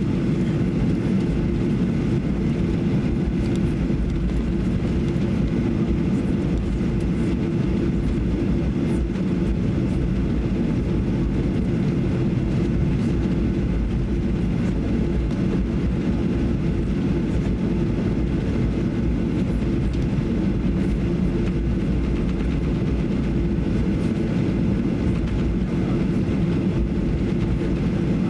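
Cabin noise inside a Boeing 737-800 taxiing on the ground: a steady low rumble with a constant hum from the CFM56 engines at taxi power, heard through the cabin.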